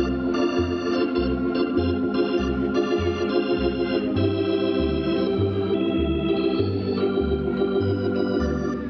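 Organ music: sustained chords over a steady bass line that steps about twice a second.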